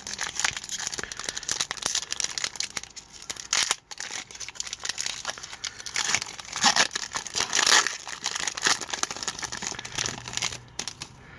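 Hockey card pack wrapper being torn open and crinkled by hand, a dense run of crackling, loudest past the middle.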